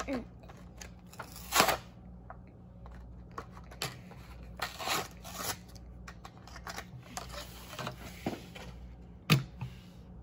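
A Hot Wheels blister pack being opened by hand: plastic blister and cardboard card crinkling and rustling, with scattered clicks and snaps, and a sharp tap near the end.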